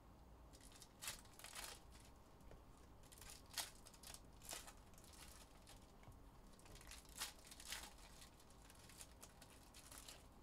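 Foil wrappers of Donruss football card packs crinkling and being torn open in short, quiet bursts, several times over a few seconds.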